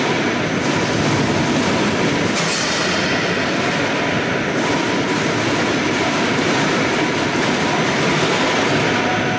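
Apple juice processing machinery running in a hall: a loud, steady mechanical noise with a thin steady tone in it.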